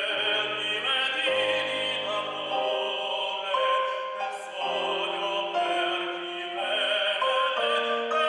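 Male operatic voice singing an aria with grand piano accompaniment, holding long wavering notes over changing piano chords.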